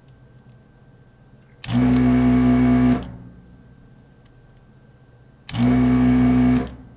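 Desoldering tool's vacuum pump, switched on by its trigger twice, each time running with a steady hum for about a second to suck molten solder from the pins.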